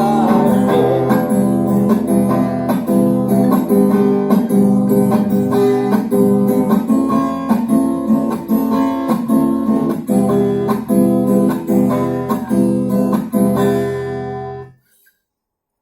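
Acoustic guitar strummed in a steady, even rhythm, playing the instrumental close of a song. It stops suddenly near the end.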